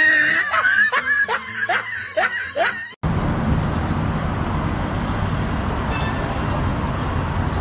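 A person laughing in short repeated 'ha' sounds for about three seconds. The sound then cuts abruptly to a steady, fairly loud hiss of road traffic noise.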